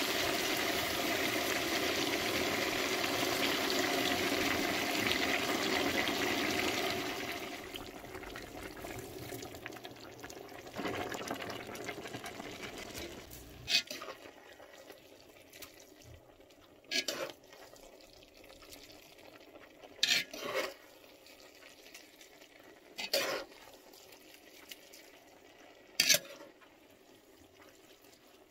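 Water poured into a kazan of carrots frying in hot oil: a loud sizzling hiss that dies down after about seven seconds. Later come about six short, sharp knocks, a few seconds apart.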